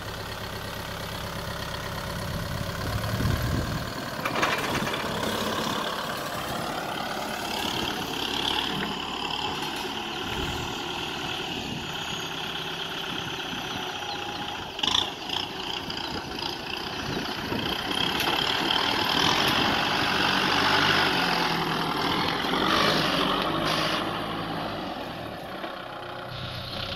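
Kubota M6040SU tractor's diesel engine running as the tractor works its front blade through loose sand and dirt, swelling louder for a few seconds past the middle, with a short knock about halfway through.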